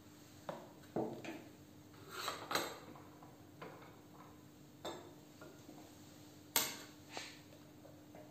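Portable toy gramophone being taken apart and packed away by hand: scattered clicks, clinks and light knocks as the metal sound-box arm and horn are set down on a wooden table and the record is lifted off and stowed in the case. The sharpest knock comes about two thirds of the way through.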